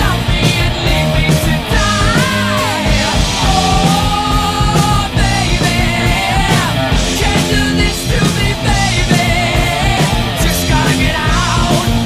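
Loud rock song: a singing voice with wavering and held notes over drums and a full band.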